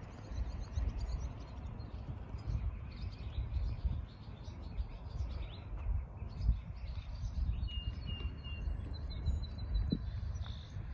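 Songbirds chirping and singing, with short calls throughout and a few clear, held whistled notes near the end. Underneath runs a low, fluctuating rumble.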